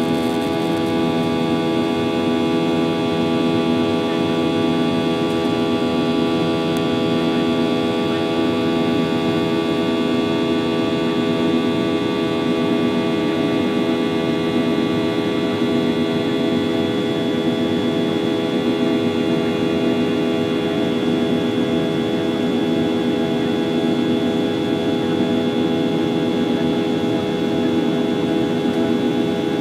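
Boeing 737-800's CFM56-7B turbofan at climb power, heard from inside the cabin beside the engine: a loud, steady drone of many held tones over a rushing hiss of air.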